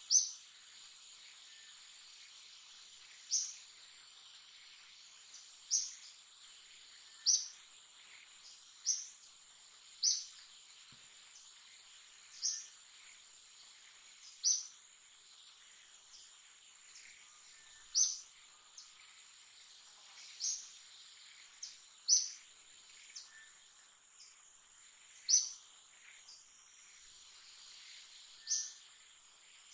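Steady high-pitched insect drone, as of crickets or cicadas, with short sharp high chirps repeating irregularly about every one to three seconds, some fifteen in all.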